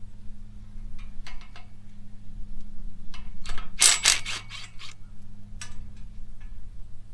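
Scattered metallic clicks and clatters from dismantling a bolted metal rack, the loudest cluster about four seconds in, over a steady low hum.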